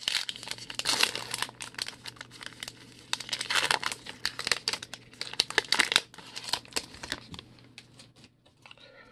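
Crinkling and tearing of a baseball card pack wrapper as it is ripped open and crumpled by hand, in uneven crackly bursts with the loudest about a second in, three and a half seconds in and six seconds in, dying down near the end.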